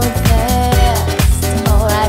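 Disco-style dance music with a steady, pounding kick-drum beat and a wavering melody line held over it.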